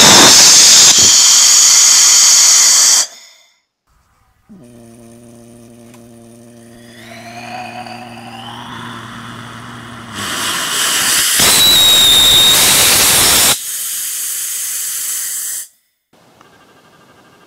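Small homemade rocket engine burning ethanol with gaseous oxygen, running with a loud, steady rushing hiss and a high whistle, cutting off abruptly after about three seconds. A steady humming tone with rising whistles follows, then the engine is heard firing again for about three seconds, tailing into a quieter steady hiss before stopping suddenly.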